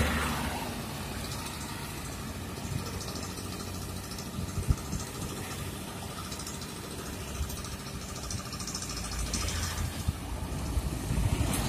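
Roadside traffic: motorcycles passing and a Hino truck's diesel engine drawing nearer, the rumble growing louder near the end.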